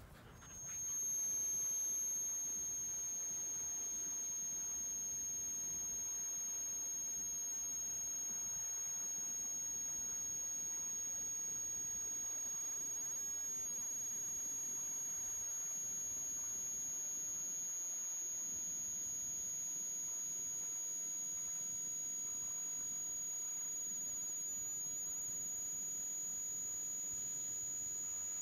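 A steady, high-pitched electronic tone that comes in about a second in and holds unchanged, without pulsing.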